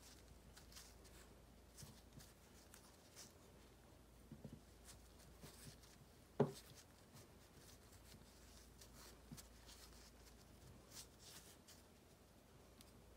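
Faint soft rustling and rubbing of a madeleine being rolled and pressed in roasted soybean powder in a wooden bowl by gloved hands, with one short soft knock about six and a half seconds in.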